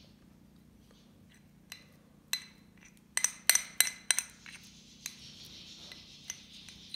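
Metal fork clinking and scraping against a porcelain saucer while mashing and mixing hard-boiled egg yolk. A couple of single clinks about two seconds in, a quick run of loud ringing clinks around three to four seconds in, then softer scraping.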